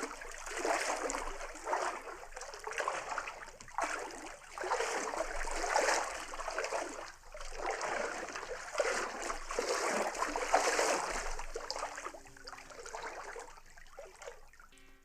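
Water lapping and splashing at a waterfront, coming in uneven surges every second or two and dying down near the end.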